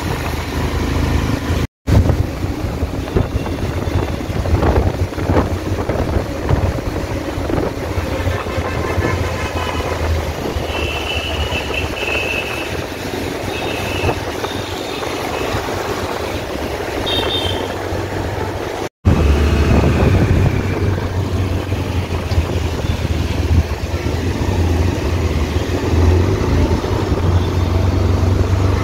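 Traffic and road noise while riding through city traffic on wet roads: a steady low engine hum with tyre and wind noise, and a few short higher tones a little past the middle. The audio cuts out for an instant twice.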